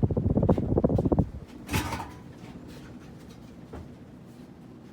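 Close rattling and rubbing noise, then a sharp click a little under two seconds in and a fainter click near the end. Under them, the ceiling fan runs with a low steady hum.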